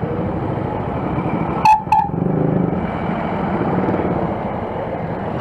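Motorcycle and traffic engines running steadily at low revs, with two short beeps a fraction of a second apart about two seconds in.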